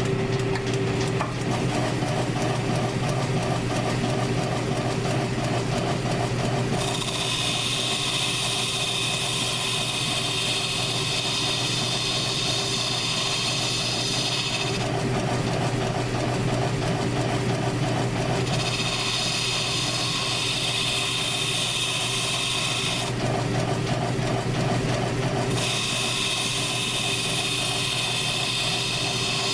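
South Bend metal lathe running steadily with a hum, while a cutting tool scrapes across the spinning scooter wheel in three long passes, each a high hiss that starts and stops: the wheel being turned down to size.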